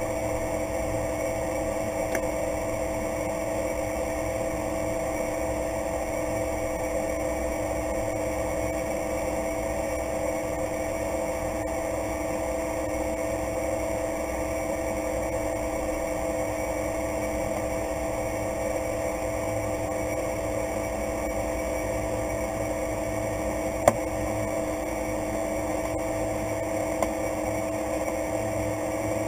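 Cessna 208B Grand Caravan's single Pratt & Whitney PT6A turboprop engine and propeller running steadily at low power while the aircraft taxis, heard inside the cockpit as an even hum of several held tones over a low rumble. Two sharp clicks near the end, the first louder.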